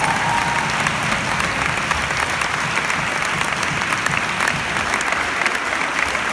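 Audience applauding, many hands clapping steadily. A last held note of the music dies away just after the start.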